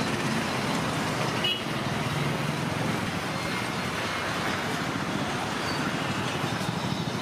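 Steady road traffic noise, an even wash of passing vehicles, with a small click about a second and a half in.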